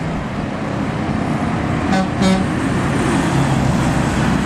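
Road traffic running past, with two quick toots of a vehicle horn about two seconds in, a bus sounding a greeting. Engine noise grows louder near the end as another vehicle approaches.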